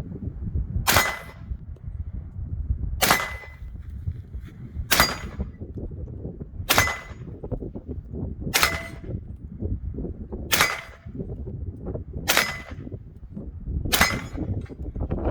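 Eight suppressed rifle shots from a 10.5-inch 300 Blackout AR fitted with a SilencerCo Omega 9K suppressor, firing supersonic 125-grain ammunition, one shot about every two seconds.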